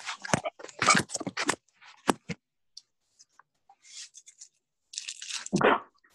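Crackling clicks and rustling coming through a video-call microphone: a quick cluster of sharp clicks in the first second and a half, scattered clicks and hissy rustles after, and a fuller burst near the end.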